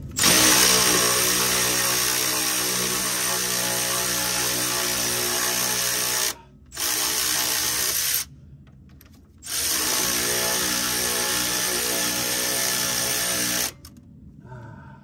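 Milwaukee Fuel cordless electric ratchet running on a suspension bolt while vice grips hold the back of it, working the bolt loose. The motor whines steadily in three spells: about six seconds, a short burst of a second and a half, then about four seconds, with brief pauses between.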